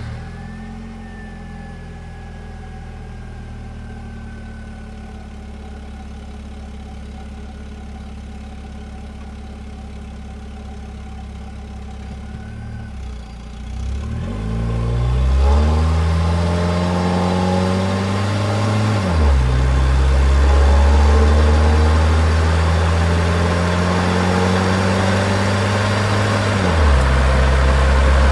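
Car engine idling steadily, then pulling away about halfway through and accelerating through the gears, its pitch climbing and dropping sharply at two gear changes.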